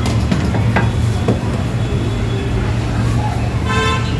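Steady low hum of commercial kitchen machinery under a noisy kitchen haze, with a few light metal clicks and knocks as the khachapuri is handled on a steel pizza peel and counter. A brief high ringing squeak comes near the end.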